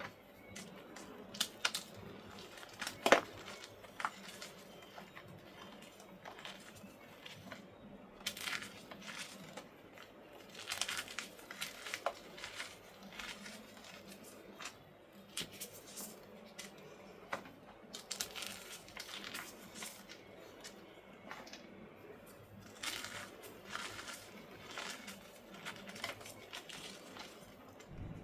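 Purple gym chalk blocks being crushed into crumbs: irregular dry crunches and crumbling crackles, in clusters, with one sharp crunch about three seconds in.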